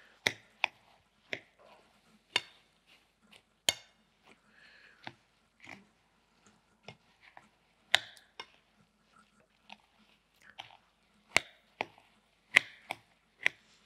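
Spoon clinking and scraping against a glass bowl while folding a thick whipped-cream mixture, in irregular sharp clicks every half second to second with soft stirring sounds between.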